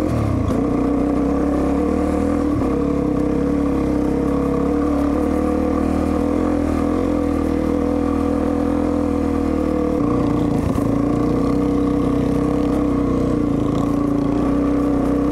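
Motorcycle engine running at a steady speed while being ridden on a dirt trail, with a slight change in engine note about ten seconds in.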